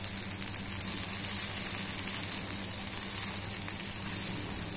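Egg-and-vegetable mixture sizzling steadily in coconut oil in a frying pan over a low flame.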